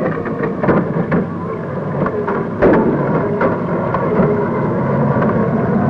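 Military vehicle engines running steadily with a noisy rumble, with several sharp knocks or cracks over the top.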